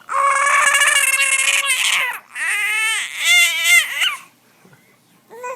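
Five-month-old baby girl squealing: one long held squeal of about two seconds with a rapid flutter, then about two seconds of squeals that swoop up and down in pitch, and a short squeak near the end.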